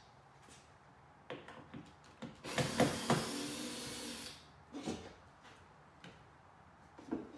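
Cordless drill-driver running for about two seconds as it backs out a screw, with scattered clicks and knocks before and after.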